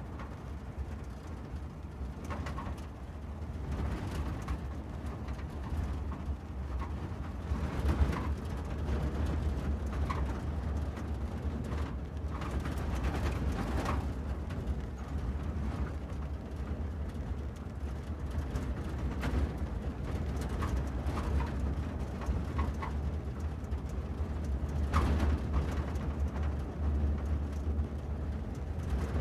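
Car driving: a steady low rumble of engine and road noise, with a few short faint notes over it.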